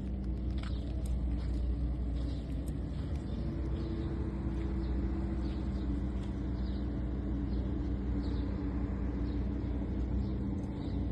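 Steady low rumble and hum of a running motor, unchanging throughout.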